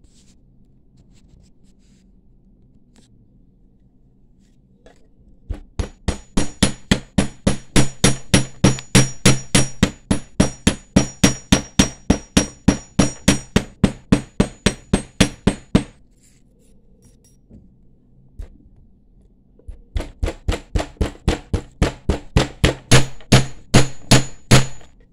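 Steel hammer striking brass wire flat on a steel bench block, about three blows a second, each with a high metallic ring. The hammering starts about five seconds in and runs for about ten seconds, then stops for a few seconds and starts again near the end.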